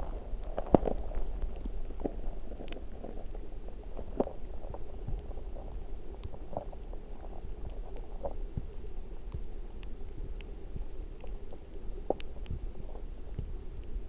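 Mountain stream heard underwater through a submerged camera: a steady low rumble of flowing water with scattered small clicks and knocks, a few louder ones about a second in, around four seconds and near the end.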